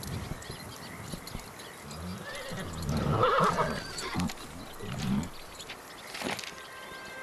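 Horse neighing, loudest about three seconds in, with a few hoof clops.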